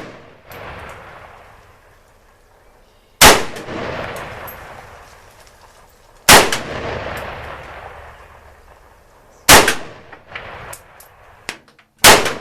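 Chinese Type 56 SKS semi-automatic rifle firing four single shots about three seconds apart, each followed by a long rolling echo. A few faint clicks fall between the last two shots.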